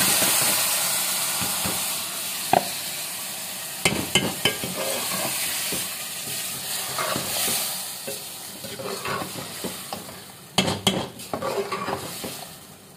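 Yogurt-marinated chicken sizzling as it hits hot oil and browned onions in an aluminium pot. The sizzle is loudest at first and dies down. A metal spoon stirs and scrapes through it, knocking against the pot a few times, with a burst of knocks near the end.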